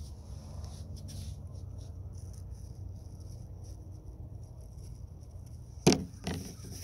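Faint scratching of a paintbrush on canvas over a steady low rumble, then two sharp knocks close together near the end.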